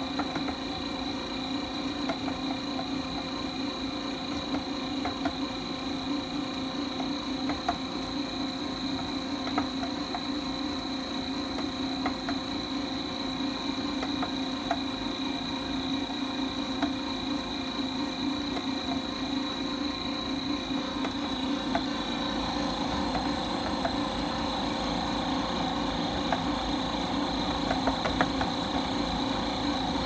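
Häussler dough mixer running while mixing: a steady motor hum with a thin high whine and scattered light ticks. A deeper rumble joins after about twenty seconds.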